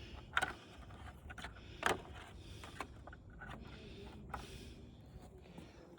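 Scattered light clicks and knocks of dismantled flat-screen TV parts being handled and set down, with two sharper knocks about half a second and two seconds in.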